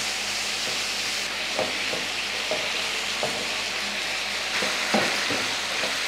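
Chicken strips frying in a nonstick pan over a medium flame, cooking in the liquid from their yogurt marinade with no water added: a steady sizzle, with a spatula stirring and giving a few faint knocks against the pan.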